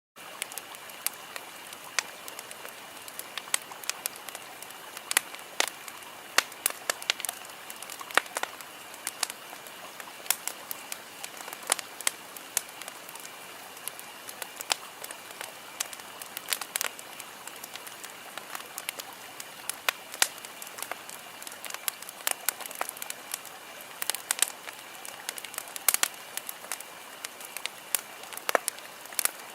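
Campfire crackling, with irregular sharp pops and snaps over a steady hiss of burning wood.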